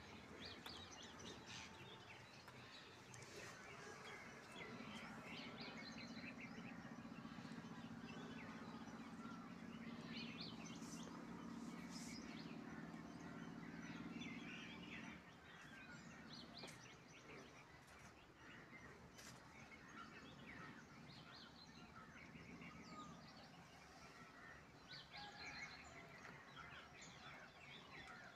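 Faint outdoor background of birds chirping, with a low steady hum from about five seconds in until about fifteen seconds in.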